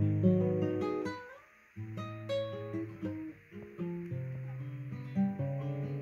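Acoustic guitar playing single plucked notes and chords. The notes die away about a second in and the playing starts again just before two seconds.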